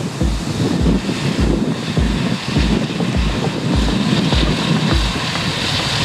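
John Deere 6250R tractor's six-cylinder diesel running under load as it pulls a six-furrow Lemken plough through the soil. Wind rumbles on the microphone, and a regular low thump comes about every 0.6 seconds.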